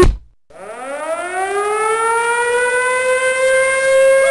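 A short thump, then a civil-defense-style warning siren winds up, its wail rising in pitch over about two seconds and then holding steady.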